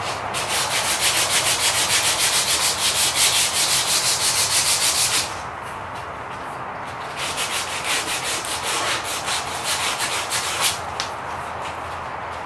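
150-grit sandpaper pulled back and forth shoe-shine style across a knife's curly birch handle scales, a fast raspy rhythm of about four to five strokes a second. It pauses for about two seconds some five seconds in, then goes on in a second, less even bout that stops a little before the end.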